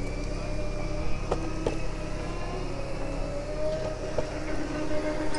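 Longboard wheels rolling on a concrete path: a steady rumble with a faint drifting hum, and a few short clacks as the wheels cross cracks in the pavement.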